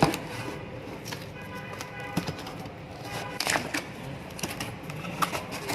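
Sharp plastic click as a Canon iR 1435 photocopier's front cover is opened, followed by scattered clicks and knocks of its plastic parts being handled.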